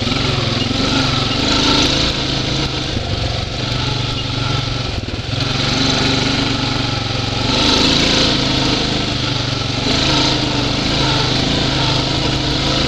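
2012 Honda Rancher 420 ATV's single-cylinder four-stroke engine running while being ridden, the note swelling and easing a few times with the throttle.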